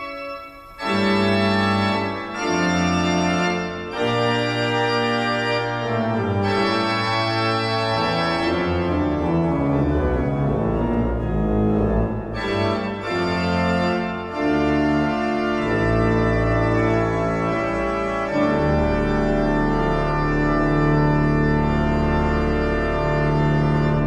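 Organ music: slow held chords changing every second or two, coming in loud about a second in, with a stretch of quicker moving notes in the middle and a long held low chord near the end.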